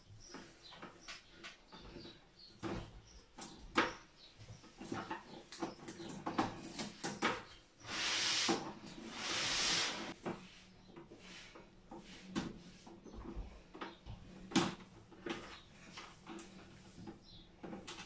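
Scattered clicks, taps and small knocks of hands and a screwdriver working wires and terminals in a domestic consumer unit, with two longer scratchy rustles about eight and nine and a half seconds in.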